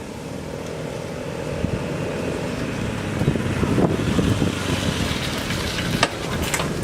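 Motorcycle riding along, its engine running under heavy wind noise on the microphone, growing a little louder over the clip, with a few sharp clicks near the end.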